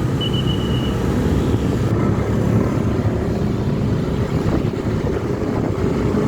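Steady engine and road rumble from vehicles on the move, with a thin high steady tone lasting under a second near the start.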